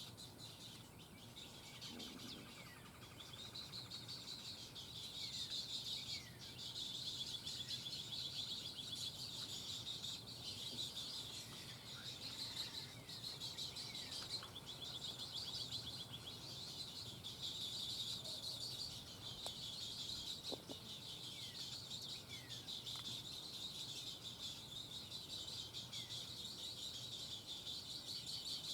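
Birds calling around a pond: a continuous high, rapid chattering that swells and fades in phrases of a few seconds, with scattered short downward-sliding chips.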